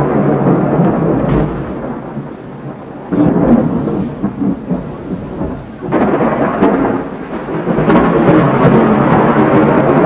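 Thunder rolling in waves during a thunderstorm: a loud rumble that sags about two seconds in, then swells up again sharply about three seconds in and once more about six seconds in.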